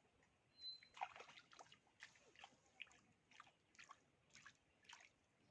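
Faint small splashes and drips of water, about two a second, with a brief high chirp near the start.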